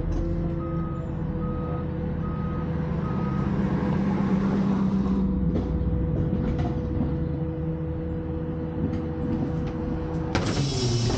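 Rear-loading garbage truck running steadily with its hydraulics, a low drone with a steady hum. A backup alarm beeps four times in the first few seconds. Just before the end a louder hissing rush sets in.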